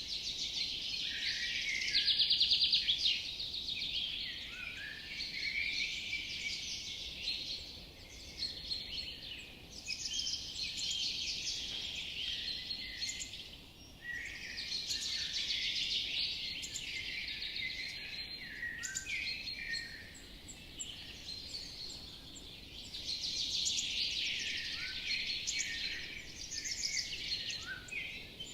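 Forest songbirds singing together: many overlapping chirps and quick trills that swell and fade in waves every few seconds.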